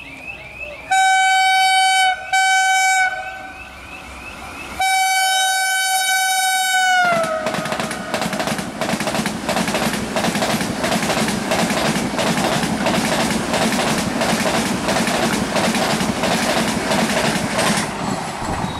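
Express train's horn sounding two short blasts and then a longer one that drops in pitch as the train reaches the listener, followed by the train rushing past at high speed, its wheels clacking rapidly over the rail joints until the last coach is gone.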